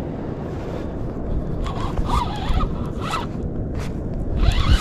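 Fishing reel working against a heavy fish in short spells, over steady low wind and water noise.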